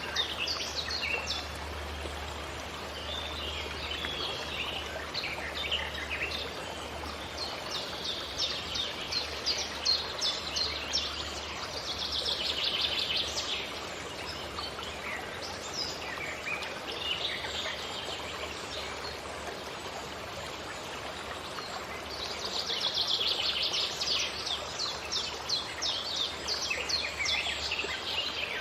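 Several wild birds calling and singing in a forest, with dense, rapid trills about twelve seconds in and again from about twenty-two to twenty-five seconds, over a steady hiss.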